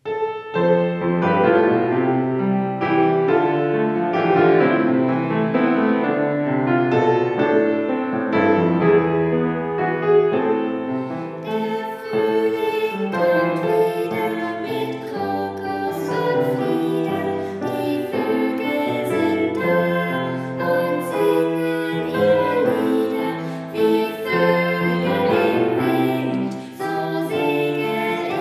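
Piano playing a song accompaniment, joined partway through by a girl and a woman singing the melody together.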